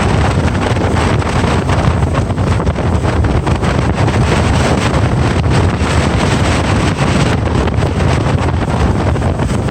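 Wind buffeting the microphone, loud and steady, with a heavy low rumble.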